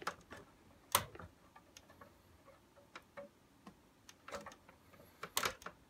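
Irregular light plastic clicks and taps from the MD drive unit being pulled and wiggled in a Victor Clavia RC-G15MD boombox's chassis, with a louder knock about a second in and another near the end. The unit is stuck and won't come free.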